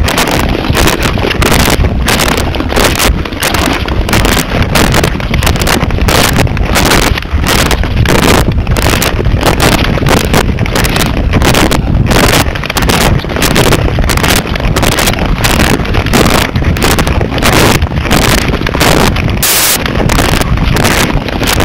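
Wind buffeting the microphone of a camera carried by a skater moving at speed on outdoor ice: a loud, continuous rumble.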